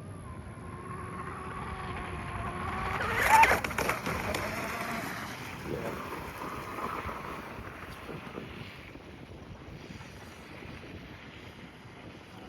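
Proboat Blackjack 26 RC catamaran's brushless motor and propeller whining as the boat runs across the water, rising to its loudest about three seconds in and then fading as it moves away, over wind noise on the microphone.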